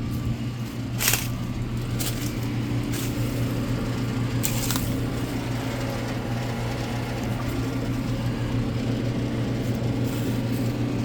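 American Standard Heritage heat pump outdoor unit running, a steady low hum of its compressor and condenser fan. A few brief clicks over it, the sharpest about a second in.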